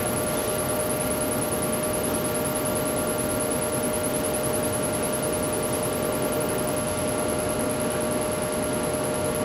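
Steady machine noise while lettering is burned into denim: an even hiss with a constant hum, unchanging throughout.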